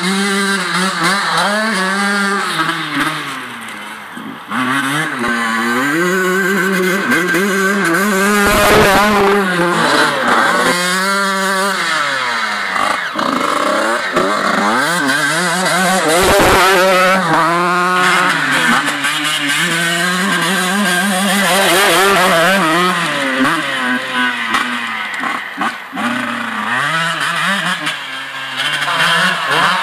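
Honda CR 125 two-stroke motocross bike being ridden off-road, its engine revving up and dropping back again and again as the rider works the throttle.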